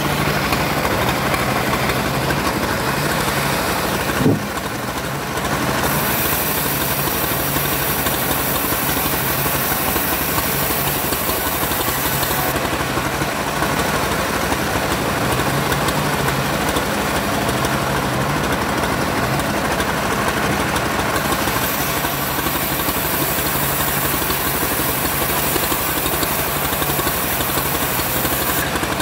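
Engine-driven homemade bandsaw running steadily while ripping sengon wood, with a sharp knock about four seconds in followed by a brief dip in level.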